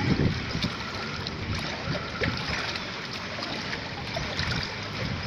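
Floodwater flowing and splashing across a street: a steady wash of water noise, with a few low thumps near the start.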